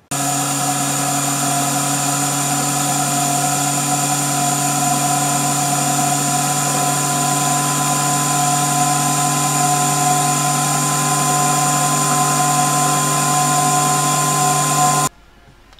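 EMCO Unimat SL miniature lathe running, its small motor and belt-driven spindle turning a small brass workpiece in the collet chuck against a cutting tool. It is a steady mechanical hum with several held tones, and it cuts off suddenly near the end.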